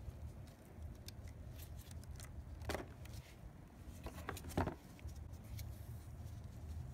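A few small plastic clicks and handling noises as blade fuses are pushed back into a Mazda RX-8's under-hood fuse box, over a faint steady low hum.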